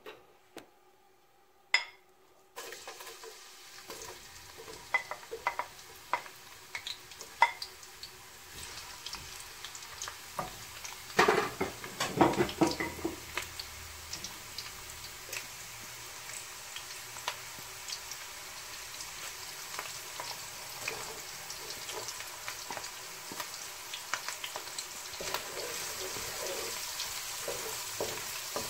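Cooking oil in a nonstick wok crackles with scattered pops after a sharp click near the start. About eleven seconds in, sliced onions go into the hot oil with a loud burst of sizzling that settles into steady frying, stirred with a wooden spoon near the end.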